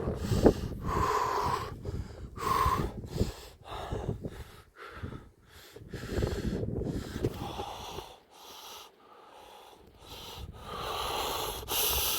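A man breathing hard in ragged, gasping breaths, with a couple of short voiced gasps in the first few seconds and a quieter stretch past the middle.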